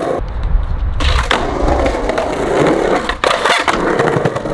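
Skateboard wheels rolling on concrete, then the board's tail scraping in a long slide on the quarter-pipe coping, with a sharp knock a little past three seconds in.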